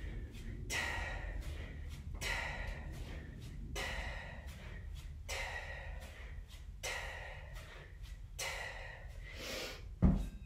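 Sharp, forceful breaths, one about every second and a half, in time with two-hand kettlebell swings. Near the end a heavy kettlebell is set down on the floor with a loud thud.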